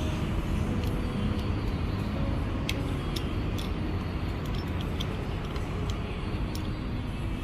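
Steady road traffic noise from passing vehicles, with scattered light clicks at irregular intervals.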